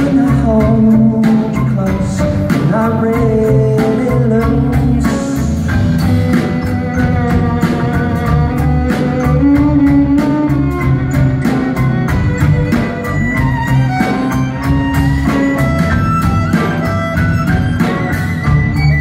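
Live band music: a drum kit keeps a steady beat under electric guitar, violins and singing.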